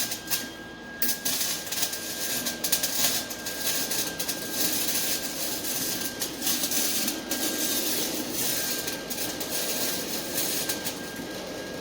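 Electric arc welding on an exhaust pipe: a steady, dense crackle and sizzle with a faint steady high tone beneath, the arc breaking off briefly a few times and stopping near the end.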